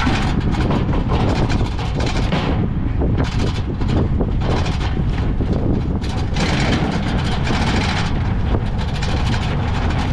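Steady, loud rumble and clatter of vehicles rolling along the road.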